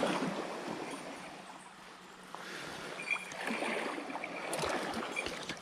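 River water running in a steady rush, with a few short clicks and scuffs of gear or footsteps.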